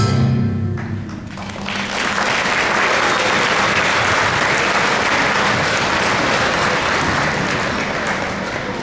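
The last notes of a live song die away in the first second, then an audience applauds, easing off near the end.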